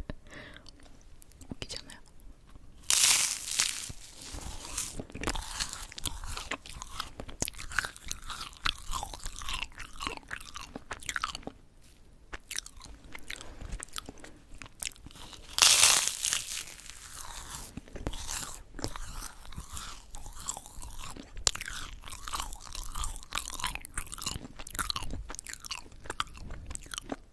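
Close-miked crunching and chewing of yugwa, Korean fried glutinous-rice sweets coated in puffed rice. There are two loud crisp bites, one about three seconds in and another a little past the middle, with dense crackly chewing in between and after.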